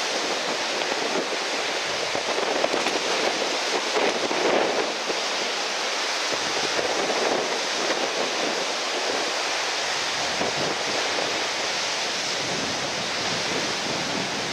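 Steady rush of breaking surf and strong wind, an even noise with slight swells in loudness.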